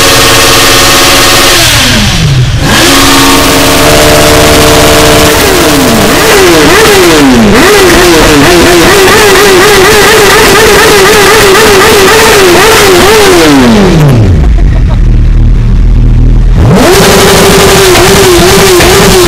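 Sport motorcycle engine revved hard and repeatedly, the throttle blipped again and again so the pitch climbs and falls in quick succession, very loud and echoing in a garage. About fourteen seconds in it drops back to a low idle for a couple of seconds, then revs up again.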